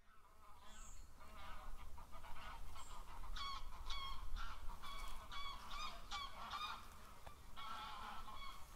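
Many birds calling in quick succession, short repeated calls, some overlapping, over a steady low rumble.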